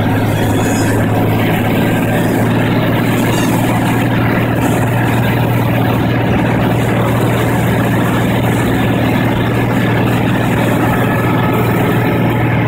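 Cessna 185's six-cylinder piston engine and propeller heard inside the cockpit as a steady low drone, on final approach to a water landing.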